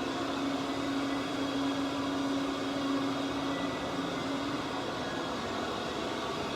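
Vacuum cleaner motor running steadily, with a steady hum that drops away about two-thirds of the way through while the rushing air noise carries on.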